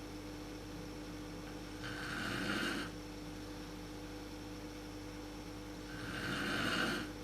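A woman snoring in her sleep: two snores about four seconds apart, each about a second long, building up and then stopping abruptly. A steady low hum runs underneath.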